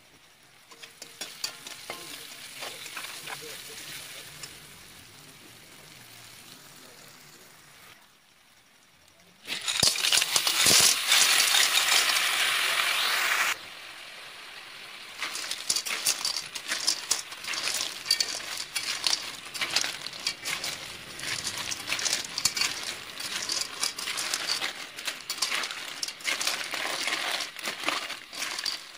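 Onions and greens frying softly in a wok. About a third of the way in a loud sizzle lasts about four seconds and stops suddenly. After that, river snails in their shells are stirred with a spatula, the shells clicking and rattling against each other and the wok over the frying.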